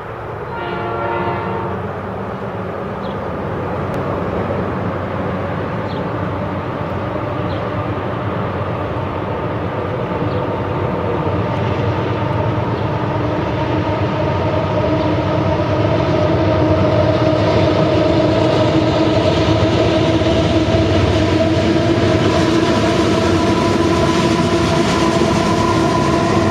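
Diesel locomotives of a Southern Pacific grain train approaching and rolling onto a steel truss bridge, the rumble growing steadily louder. The train horn sounds briefly at the start, and a steady droning tone builds through the second half.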